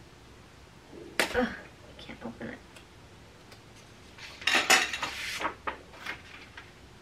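Handling noise from a rolled fabric bundle with a paper label band being moved and turned over: short clicks and crinkles, a cluster about a second in and a longer, denser one around four to five seconds in.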